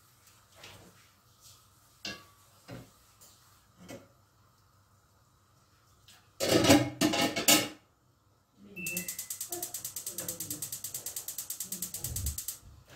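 A metal lid clattering onto a steel cooking pot, then a gas oven's spark igniter clicking rapidly and evenly, about ten clicks a second for nearly four seconds, as the oven control is turned to light the burner.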